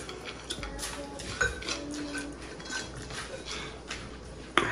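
Light clinks and scrapes of fingers working rice and curry on ceramic plates while eating by hand, with a sharper click against a plate or glass near the end.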